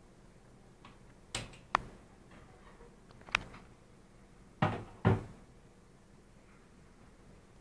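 A few separate knocks and thumps against a quiet background: two lighter ones about a second and a half in, another near three and a half seconds, and the two loudest close together about five seconds in.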